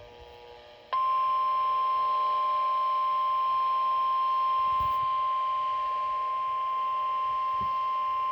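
Weather alert tone: a single steady high tone, the 1050 Hz warning alarm of NOAA Weather Radio, starting about a second in and held unbroken, signalling that a warning message follows.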